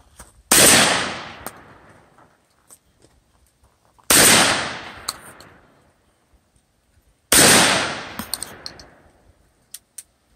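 A 12-gauge shotgun is fired into the air three times, a few seconds apart. Each shot echoes and fades over a second or two. A few light clicks follow the last shot.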